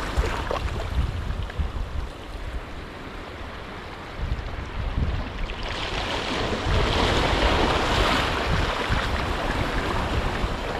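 Sea waves washing against a rocky shore, with wind buffeting the microphone; about halfway through a wave swells into a louder hiss of surf that slowly fades.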